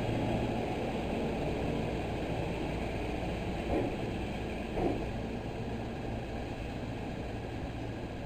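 Electric commuter train arriving at a station platform: a steady low rumble that slowly fades as it slows, with two brief sharp sounds about four and five seconds in.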